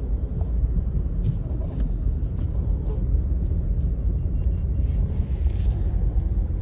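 Steady low rumble of a car moving slowly in heavy traffic, heard from inside the cabin, with a few faint clicks.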